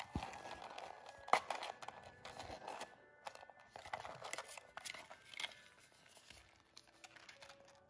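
Paper crinkling and rustling as a card and tag are pulled out of the opened Damier Ebene Mini Pochette Accessoires pouch. Light clicks and scrapes of the pouch's coated canvas and zip are handled at the same time, with the sharpest click about a second and a half in.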